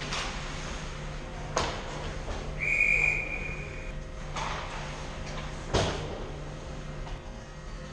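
A referee's whistle blown once, a single steady high blast of just over a second, stopping play in an ice hockey game. Several sharp knocks ring out on the ice, one near the start, one a second and a half in and one near the six-second mark.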